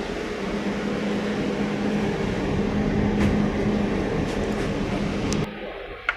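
Steady rumble and rush of a passenger ship under way, with a low hum. It cuts off abruptly about five and a half seconds in, and a single sharp click follows.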